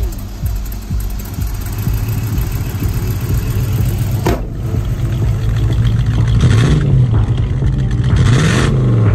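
BMW 502 Super's 3.2-litre V8 idling steadily, then revved up and let fall back twice in the last few seconds.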